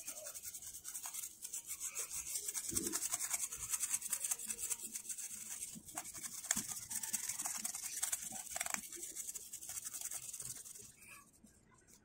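Toothbrush bristles scrubbing fast, back and forth, over a plastic model-kit part wet with denatured alcohol, lifting smudged panel-line ink. The scratchy scrubbing stops about a second before the end.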